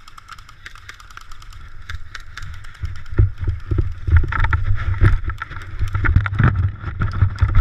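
Movement noise on a body-worn GoPro as a player runs: rattling clicks throughout, then heavy thuds and wind rumble on the microphone from about three seconds in.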